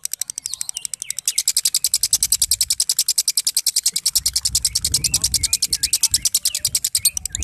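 Fischer's lovebird singing its long 'ngekek' chatter in the rapid 'konslet' style: a fast, even ratcheting trill of about a dozen clicks a second, held without a break, with a few short squeaky chirps over it. A low rumble joins in about four seconds in.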